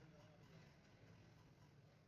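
Near silence: faint steady low hum and hiss of room tone.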